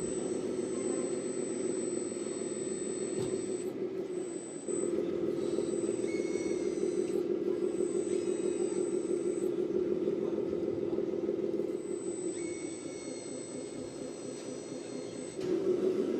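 Radio-controlled model construction vehicles running, a steady engine-like drone with a thin high whine. It grows louder about five seconds in, eases off a little past the middle, and rises again near the end.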